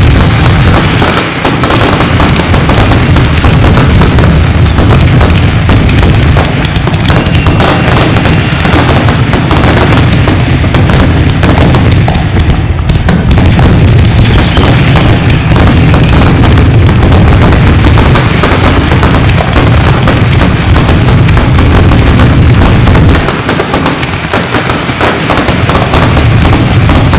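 Fireworks display: a dense, continuous barrage of shell bursts, booms and crackle, very loud throughout. The deep booms ease briefly near the end.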